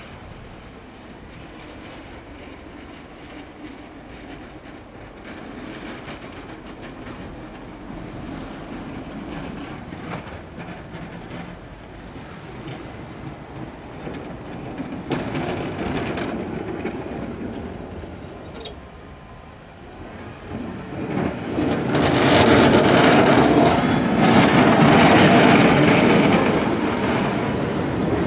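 Snowplows at work: a Caterpillar 930M wheel loader's engine running as its plow blade scrapes snow. Late on, a plow truck passes close, its V-plow scraping the road and throwing snow, much louder.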